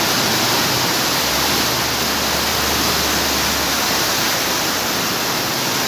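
Heavy downpour and rushing floodwater making a loud, steady noise, with a low rumble from about one to nearly four seconds in.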